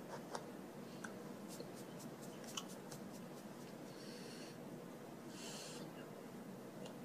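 Quiet room hiss with faint scattered clicks and soft rustles in the first half, hands and sleeves brushing and tapping as someone signs. Two short breathy hisses come later, one about four seconds in and one about a second after.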